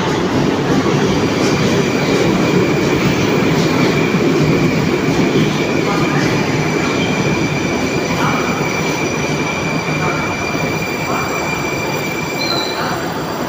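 Moscow Metro 81-765/766/767 "Moskva-2019" train running: a loud, steady rumble of wheels on track with a thin, steady high whine that fades out near the end. The whole sound grows gradually quieter over the second half.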